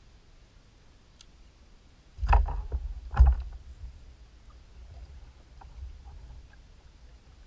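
Knocks and thuds on a plastic kayak hull: a clattering cluster about two seconds in and a sharper knock a second later, then a few light clicks.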